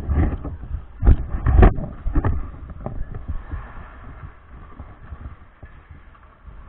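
Heavy knocks and thumps as a body-worn camera is jostled while its wearer steps out onto the ice, the loudest just after a second in. Then a quieter steady rushing noise with faint scrapes of skating.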